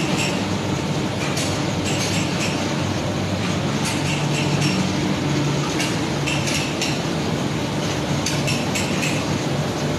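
Steady mechanical running noise with a low hum, broken by irregular metallic clicks and clinks.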